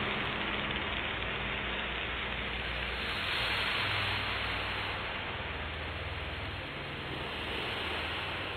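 Dark space ambient music: a steady hiss-like wash of noise over a low drone whose notes shift slowly, gradually fading.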